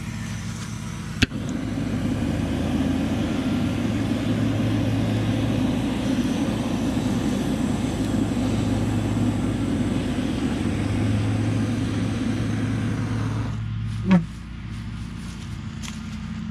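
Propane torch burning steadily as its flame is held into the kindling of a fire pit to light it. It lights with a sharp pop about a second in and cuts off suddenly near the end, followed by a short knock.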